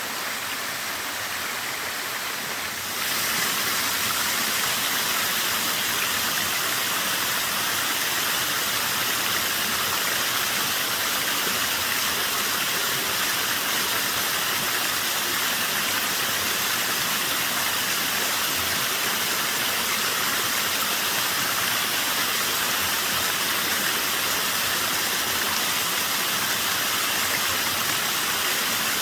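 Water of a small waterfall falling steadily in a somewhat low flow: a continuous rushing hiss that steps up in loudness about three seconds in, then holds steady.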